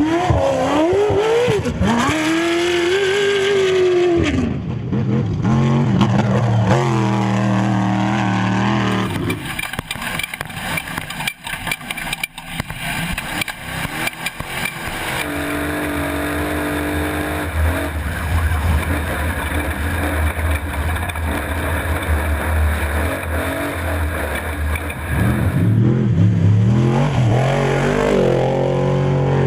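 Off-road race vehicle engines revving hard and passing, the pitch climbing and falling with the throttle, with a stretch of steadier running and rough, rattling noise in the middle.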